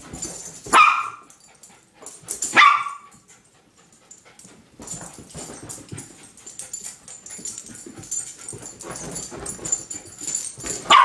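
Bichon frise barking excitedly at a laser pointer's dot: two short, sharp barks about two seconds apart, a stretch of softer scuffling, then another bark at the very end.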